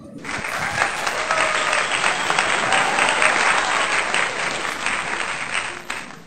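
Crowd applause, a dense steady clatter of many hands clapping that starts abruptly and cuts off just before the end.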